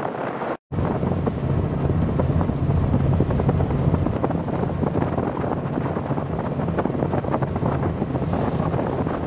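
Strong wind buffeting the microphone: a steady, rumbling rush with a wash of open sea behind it. It cuts out for an instant about half a second in.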